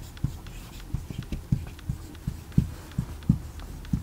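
Marker writing on a whiteboard: a string of short, irregular taps, a few a second, as each stroke meets the board.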